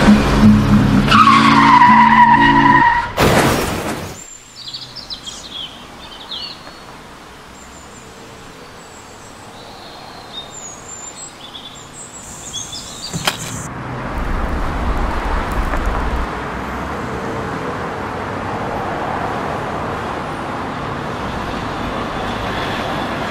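Film score fading under a high tyre screech, cut off about three seconds in by a loud burst of noise. Then quiet outdoor ambience with birds chirping, a single click, a low rumble, and from about fourteen seconds a steady background hum like distant traffic.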